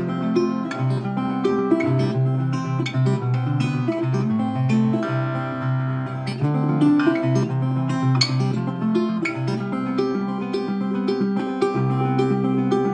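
Guitar music: quick plucked notes over a steady bass line.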